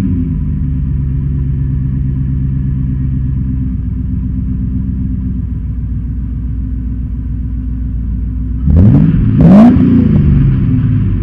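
V8 engine idling steadily, then blipped twice in quick succession near the end, the revs rising and dropping back to idle each time.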